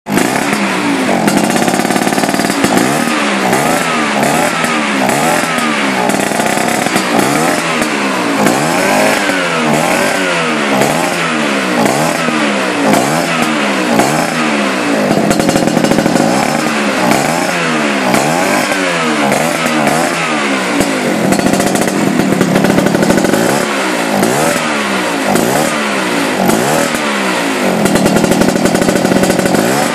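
Vespa scooter engine fitted with a racing CDI ignition being revved over and over, the throttle blipped about once a second so the pitch rises and falls each time.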